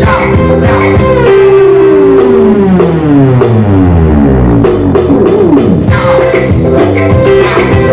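Live band music with electric guitar, keyboard and drum kit. In the middle a long falling slide plays while the drums thin out, and the full band comes back in about six seconds in.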